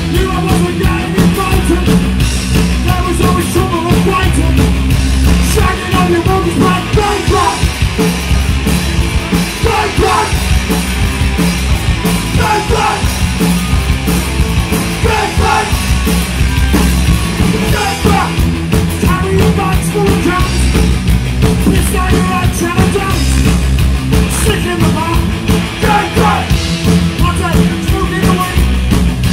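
Punk rock band playing a song live, full band at a steady driving pace with shouted, sung vocals.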